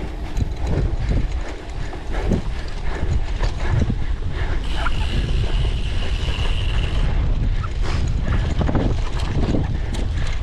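A cyclocross bike ridden hard over rough ground: its chain and drivetrain rattle and click continuously under a steady rumble of wind on the microphone. A steady high-pitched buzz comes in about halfway through and lasts about two seconds.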